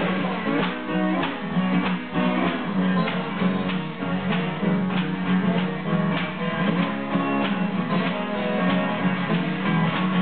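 Acoustic guitars playing an old blues-style instrumental together, with picked and strummed notes under a slide guitar part.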